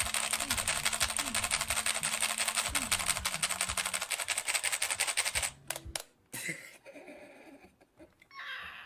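Mechanical keyboard being typed on very fast, a continuous rapid clatter of key strokes that stops abruptly about five and a half seconds in, followed by a few scattered single key clicks.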